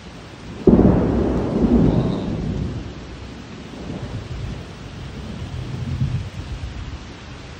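A thunderclap about a second in: a sudden crack that rolls into low rumbling for several seconds, over steady rain.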